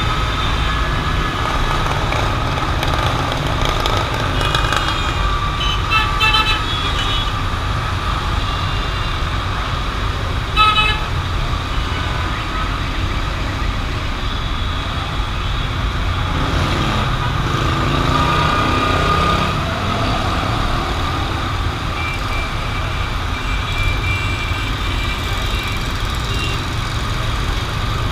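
Dense city road traffic: a steady rumble of engines and tyres, with short horn toots about five to seven seconds in and a brief louder honk around eleven seconds in.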